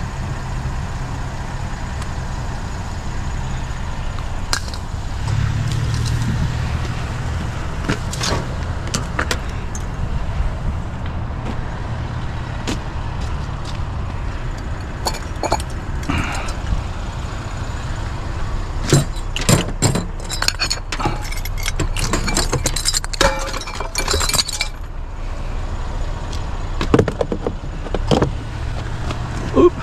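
Truck engine running steadily, with a run of sharp metallic clinks and knocks about two-thirds of the way through.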